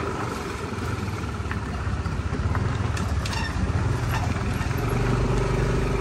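Motor scooter running at road speed, heard from the rider's seat with wind rushing over the microphone. It grows a little louder over the last few seconds.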